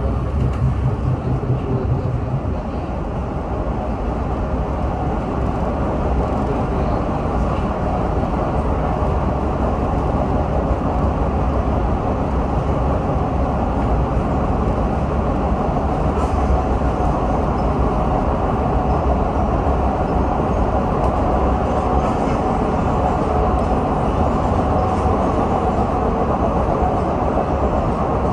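MBTA Red Line subway train heard from onboard while running at speed: a steady rumble of wheels on rail. It is a little louder in the first couple of seconds while another train passes close alongside, and a faint steady whine sits over the rumble in the later part.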